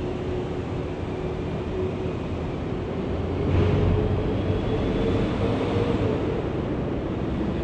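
Low, steady rumble of motor traffic on the road bridge overhead, with one vehicle's engine note swelling and rising slightly about three and a half seconds in.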